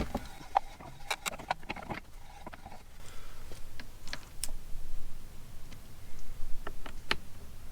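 Irregular light clicks and taps of a spanner and metal parts as a motorcycle mirror is unscrewed from its handlebar mount.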